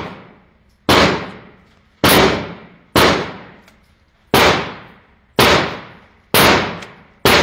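Seven semi-automatic pistol shots, about a second apart, each ringing out with a long echo that dies away in the indoor shooting range.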